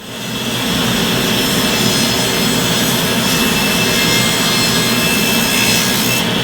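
Table saw starting up, building to full speed over about a second, then running steadily while it cuts through a board.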